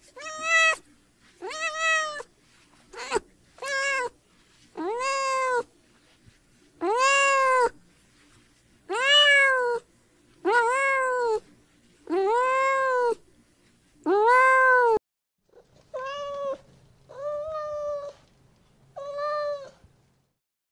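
Domestic cat meowing again and again: about ten drawn-out meows that rise and fall in pitch. After a short break near two-thirds of the way through come three shorter, flatter meows.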